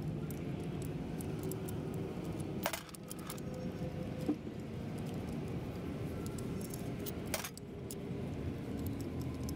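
Light metallic clinking of a steel T-handle socket wrench working the hub-cap bolts of a heavy truck's wheel hub, with two sharper clanks, over a steady low hum.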